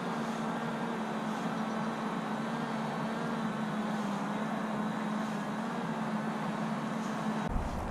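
A steady background drone with a low, level hum. A short knock comes near the end, followed by a deeper rumble.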